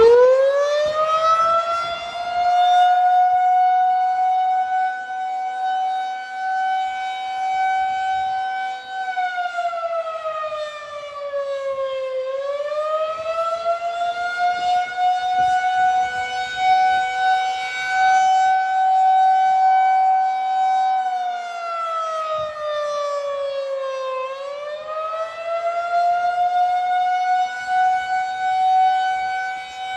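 Federal Signal 2001-SRNB tornado siren sounding its steady test tone. It reaches full pitch about a second in, then twice sags slowly in pitch and climbs back up.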